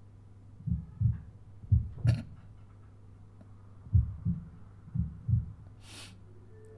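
Heartbeat sound effect in a drama soundtrack: pairs of low thuds, lub-dub, repeating about once a second with a pause partway through, over a steady low hum. A brief hiss near the end.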